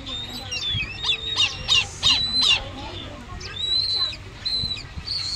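Owl chicks giving high-pitched begging calls while being hand-fed: thin whistling squeaks throughout, with a run of sharp, loud chirps about a second in.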